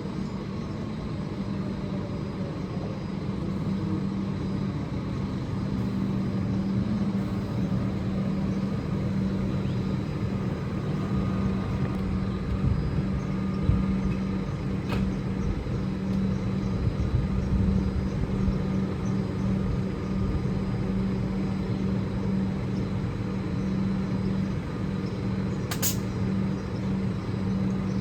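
Alstom Comeng electric train with a steady hum and low rumble that builds over the first few seconds and then holds level. A sharp click sounds near the end.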